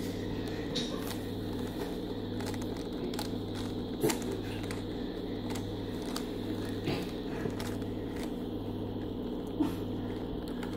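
Rubik's Cube being turned by hand, its plastic layers clicking in short, irregular runs, over a steady low hum.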